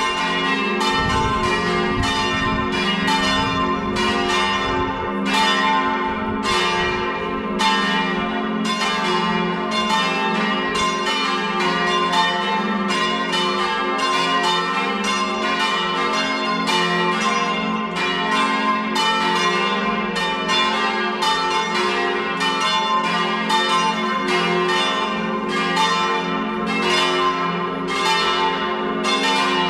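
Full peal of four swinging church bells, tuned as a ring in G-flat, sounding all together: a dense, unbroken jumble of overlapping strikes, several a second, each left ringing on.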